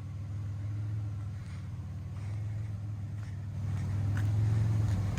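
Chevrolet Monte Carlo engine idling with a low, even hum that swells a little about four seconds in. The idle is off, 'not wanting to idle correctly', which the owner puts down to the mass airflow sensor.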